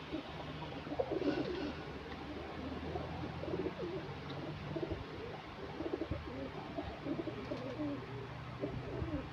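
Domestic pigeons cooing, a run of low warbling coos one after another.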